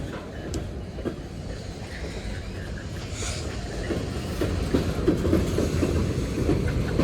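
Union Pacific manifest freight train rolling past, its wheels clacking and clunking over the rail joints in an irregular stream of knocks over a low rumble, growing louder.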